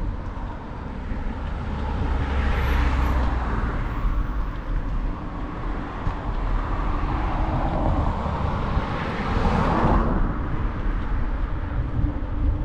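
Street traffic heard from a bicycle: vehicles passing, the loudest swelling up and ending abruptly about ten seconds in, over a steady low wind rumble on the microphone.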